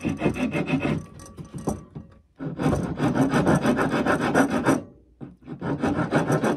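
A flat wood rasp filing the end of a wooden walking stick in quick back-and-forth strokes, in three spells with short pauses between. It is shaping the oval end round so a copper tip will fit.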